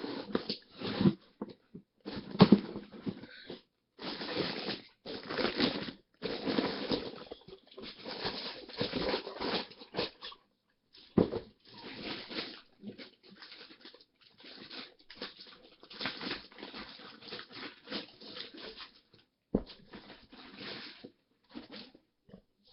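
Rustling and crinkling of paper and cardboard as a shoe box is unpacked and the sneakers are handled, in irregular bursts with a few sharp knocks.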